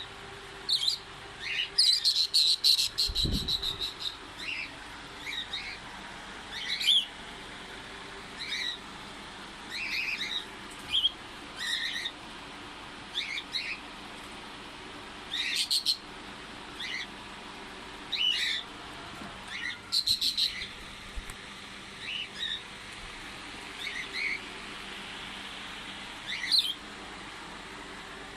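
Small pet parrots calling: repeated short high chirps throughout, with bursts of rapid chattering about two seconds in and again around fifteen and twenty seconds.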